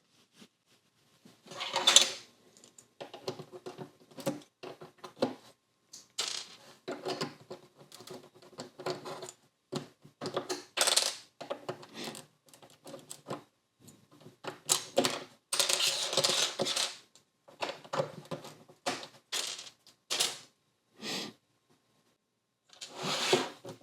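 LEGO bricks and plates being pried apart and handled, with irregular plastic clicks, taps and clatter, busiest about two-thirds of the way through.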